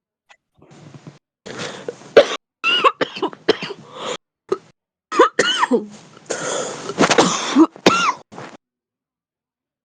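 A heavy smoker's deep, chesty coughing fit: a long run of harsh coughs with high, whistling intakes of breath between some of them. It stops suddenly about a second and a half before the end.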